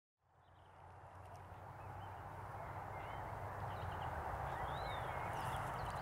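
Outdoor field ambience fading in from silence: a steady low rumble and an even hiss, with faint scattered bird chirps.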